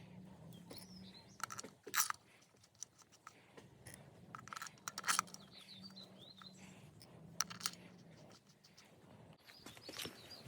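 A few sharp clicks and knocks, the loudest about two and five seconds in, over a low steady hum, with birds chirping in the background.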